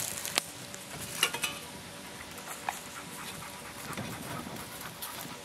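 Stainless steel stovepipe sections for a tent stove being handled and set down on the forest floor: a few sharp metallic clinks, some with a brief ring, amid rustling.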